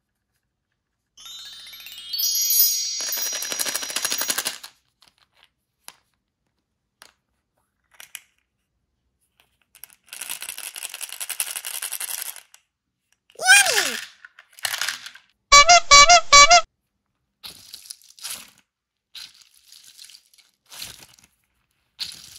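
Small hard candies rattling and pouring in plastic cups, mixed with added cartoon sound effects: a rising run of tones early on, a falling whistle, and a short loud jingle past the middle, the loudest sound here. Scattered small plastic clicks follow.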